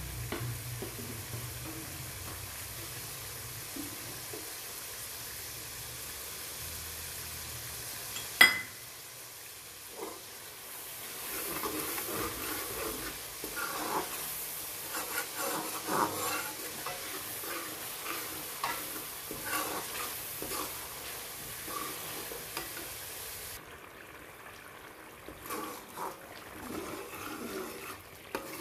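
Tomato and green-chilli masala sizzling in oil in an aluminium karahi, with one sharp knock about eight seconds in. From about eleven seconds a steel ladle stirs it, scraping across the pan in quick strokes, and the sizzle grows quieter near the end.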